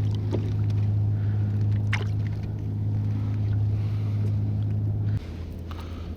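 Boat engine running with a steady low hum, then dropping suddenly to a quieter, lower hum about five seconds in, as if throttled back.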